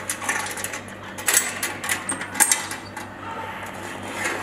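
Stainless-steel belt buckle on a checkweigher conveyor being unfastened and handled: a few sharp metallic clicks and clinks, two of them louder, about a second in and a little past halfway.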